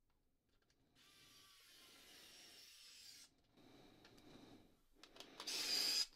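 Precision screwdriver driving a small screw into a plastic case: faint scraping and rubbing starting about a second in, with a louder short scrape near the end.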